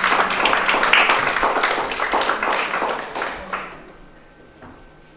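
Audience applauding, many quick claps together, dying away about four seconds in.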